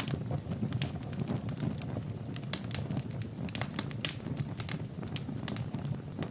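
Wood fire burning in a fireplace, crackling with frequent sharp pops over a low, steady rumble of the flames.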